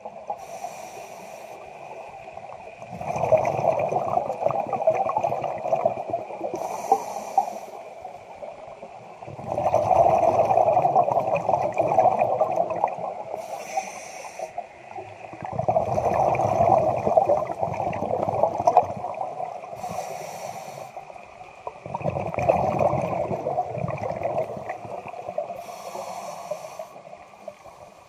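Scuba diver breathing through a regulator underwater: four long bubbling exhalations, each about four seconds, with quieter pauses and brief high hisses between them.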